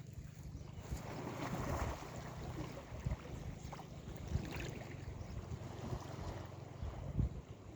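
Sea waves washing, one swelling about one to two seconds in, under wind buffeting the microphone with low rumbling gusts.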